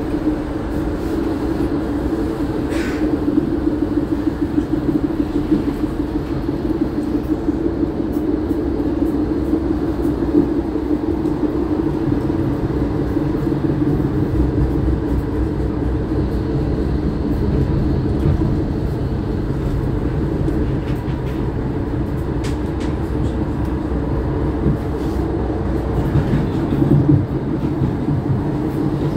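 Steady hum from an MVB NGT8D low-floor articulated tram, no. 1304, with a few faint clicks.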